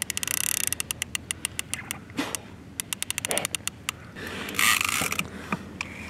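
Multiplier catfish reel ratcheting in fast, even runs of clicks as the line is worked under the load of a large wels catfish. There are two runs of clicks, through the first second and again near three seconds in, and two short hissing rushes, the louder one about four to five seconds in.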